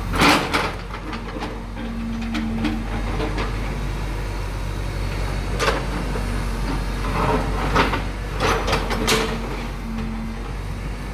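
A JCB excavator's diesel engine runs steadily while its bucket breaks up a concrete water-channel control box. Sharp knocks and clanks come just after the start, again around six seconds in, and in a cluster around eight to nine seconds. A faint steady whine comes and goes twice.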